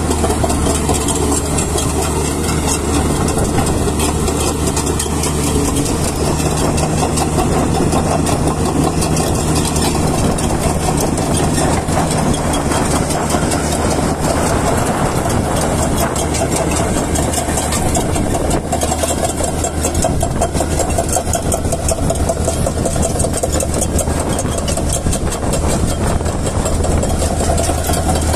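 Komatsu PC450 crawler excavator's diesel engine running steadily while the machine travels over gravel on its steel tracks, with a continuous clatter over the low engine hum.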